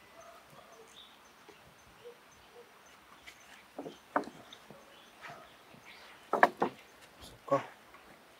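A few short knocks and scrapes on a wooden fence as a large cat rears up and climbs onto the rail, the loudest pair about six and a half seconds in.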